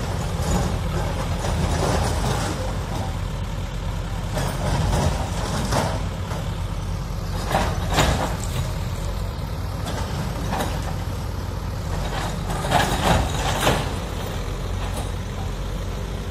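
Diesel engines of backhoe loaders running steadily during a demolition, with sharp knocks and clatter of debris every few seconds, the loudest a quick run of three near the end.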